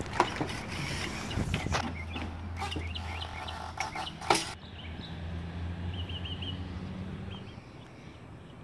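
A few sharp knocks and clatters of work on the mobile home's base, the loudest about four seconds in, over a steady low hum. A small bird chirps now and then, with a quick run of about four notes about six seconds in.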